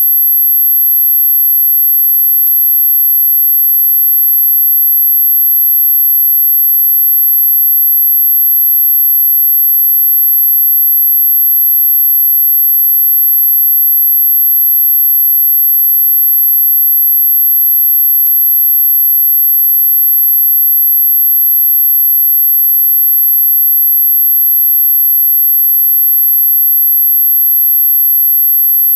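A steady, very high-pitched pure electronic tone, one unwavering pitch around 12 kHz, played as an anti-barking dog deterrent sound. Two faint clicks interrupt it, a couple of seconds in and again about two-thirds of the way through.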